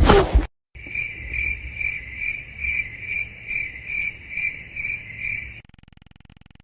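A cricket chirping: a steady high trill pulsing about two and a half times a second, stopping abruptly near the end. It follows a brief loud burst of noise at the very start.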